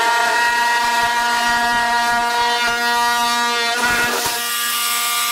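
Milwaukee cordless oscillating multi-tool running at full speed with a Q-Bit outlet box saw blade plunge-cutting a box opening in drywall: a steady, high buzz over a rough cutting hiss. The pitch wavers briefly about four seconds in, then settles again.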